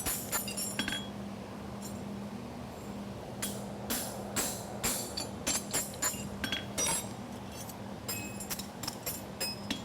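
Farrier's hammer striking a steel horseshoe on the anvil, each blow ringing, as the shoe's edge is safed. A quick run of blows opens, then after a pause of about two seconds the blows come steadily at about two a second, over a steady low hum.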